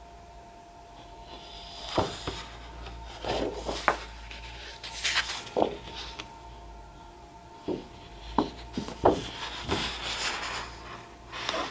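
Sheets of scrapbooking paper being handled and slid against one another: irregular rustles and soft taps, with a longer sliding rustle near the end.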